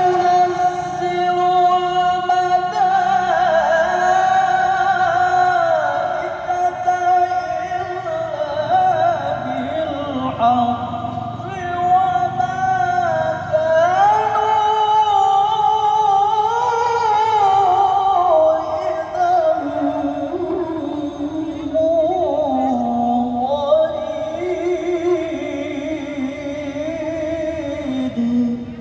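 A male qari reciting the Qur'an in the melodic tilawah style: a single voice holding long, ornamented notes that slide and turn, heard through a loudspeaker system, with short pauses between long phrases.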